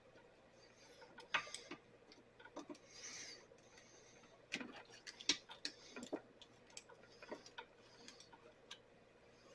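Scattered light clicks, taps and a few short scrapes of hand tools and the blower's plastic housing parts being handled as it is taken apart.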